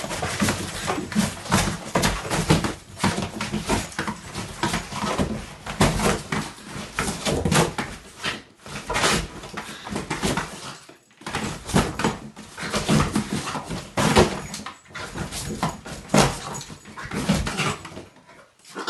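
French bulldog scratching, chewing and tearing at a cardboard box from inside it: a busy, irregular run of scraping, rustling and ripping cardboard, with the dog's own noises mixed in and a few short pauses.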